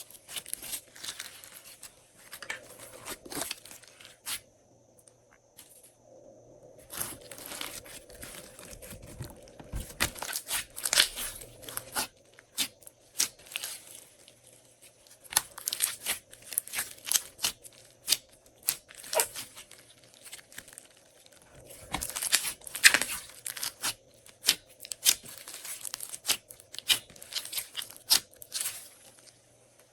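Glossy slime being mixed and squeezed by hand, giving dense, irregular sticky crackles and pops, with a short lull about a quarter of the way through.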